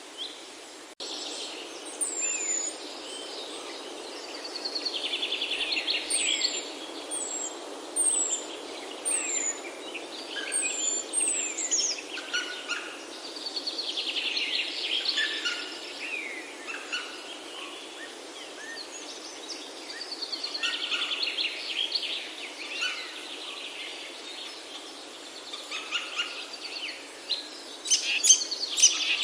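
Several birds singing and calling together: short, high down-slurred whistles repeated in series and rapid buzzy trills, over a steady background hiss.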